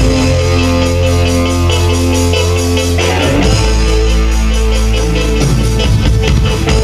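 Live band music: deep held bass notes under a quick, steady beat, with the bass line changing about three seconds in.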